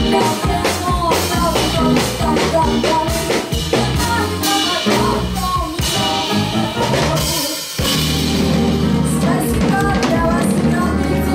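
Live band playing a song: a woman singing lead over drum kit, electric bass and electric guitar, with keyboard. About two-thirds of the way through the music briefly drops back, then the band comes in again fuller.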